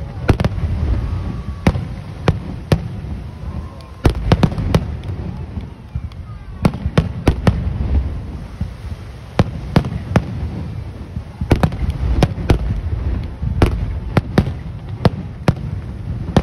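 Fireworks display: many sharp bangs and crackles from bursting aerial shells, coming in volleys, over a continuous low rumble.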